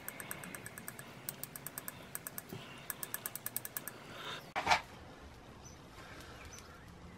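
Small plastic tube being tapped to shake a powdered sugar and baking soda mix out onto a solid-fuel mould: runs of quick, light taps, then one louder clatter about four and a half seconds in.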